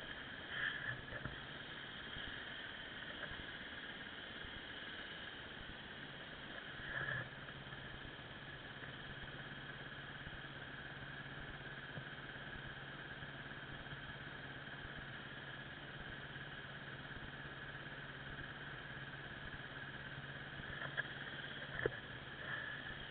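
Off-road motorcycle engine idling steadily, with a few short louder bursts, one a sharp knock near the end.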